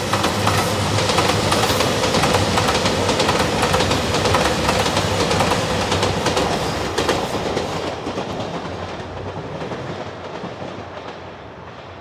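JR Shikoku 2700 series diesel express train passing at speed, its wheels clacking rapidly over the rail joints. The sound is loudest in the first half and fades steadily as the train draws away.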